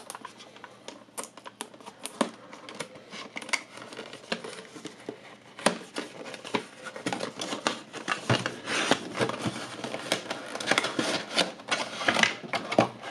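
Cardboard microphone box being handled and opened by hand: irregular scrapes, taps and rustles of card, busier and louder in the second half, picked up by a camera's built-in microphone.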